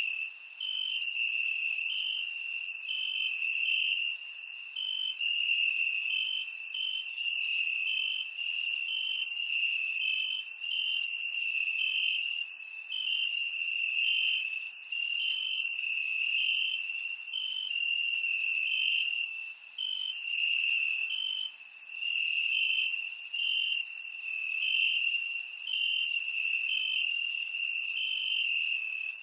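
Crickets chirping: a steady high trill, with rapid, regularly spaced chirps from another cricket running over it.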